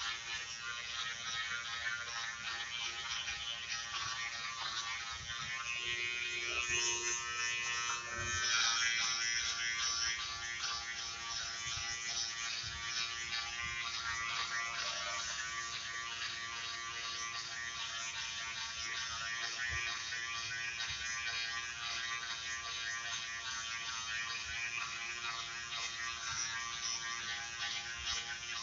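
Wahl GroomsMan Pro battery trimmer running with a steady buzz as it cuts body hair, growing louder for a couple of seconds about six to nine seconds in.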